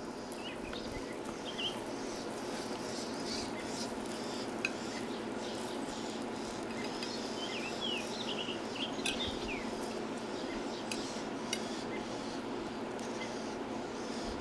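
Metal spatula scraping and clinking against the plasma-cut steel grate of a small charcoal grill as cooked burger patties are lifted off onto a plate, with scattered sharp clicks over a steady sizzle from the hot grill.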